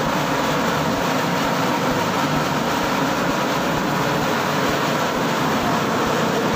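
Homemade dough mixer driven by a Maestro 0.5 HP single-phase electric motor, running with its bowl empty: a steady, loud machine hum and clatter. The noise comes from a mounting that is not yet fully bolted down, and the builder means to quiet it by adding more bolts.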